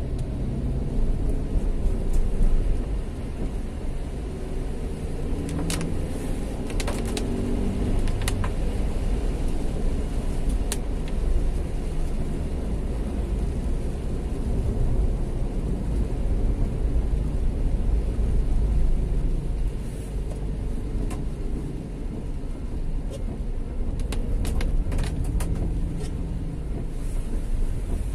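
Road traffic: motor vehicles running with a steady low rumble, with a few short clicks about six seconds in and again near the end.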